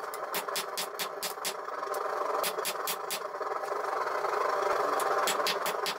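Hand hammer striking red-hot 5160 steel on an anvil in rapid runs of about four or five blows a second. The runs break off twice, the second time for about two seconds. A steady mechanical roar runs underneath and is the loudest thing while the hammering pauses.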